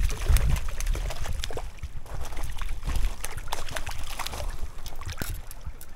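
A hooked trout splashing and thrashing in shallow creek water as it is drawn to the bank, with many sharp clicks and knocks mixed in and a low rumble underneath.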